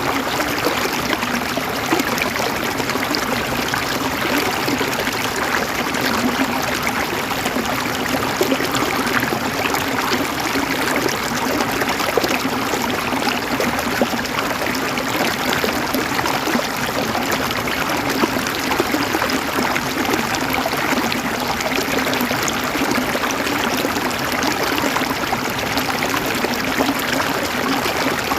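River water flowing and gurgling steadily over stones, a constant rushing with fine splashy detail.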